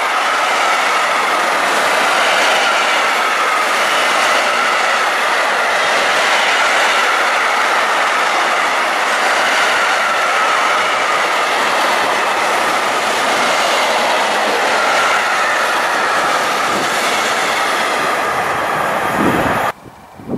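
Freight train wagons rolling past on steel rails, a steady loud rush of wheels with a wavering high ringing from the wheels. The sound cuts off abruptly near the end.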